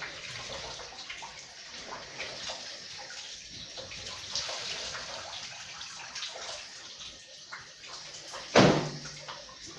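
Water splashing and dripping in a washing machine's wash tub as wet curtains are moved about in it, with many small splashes and one loud, sudden splash near the end.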